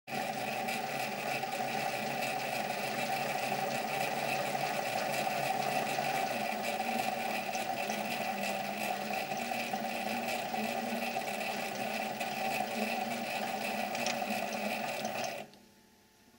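A 7x16 mini lathe running, with a steady motor and gear whine as the spindle turns the workpiece for single-point thread cutting. It is switched off about 15 seconds in, and the sound dies away.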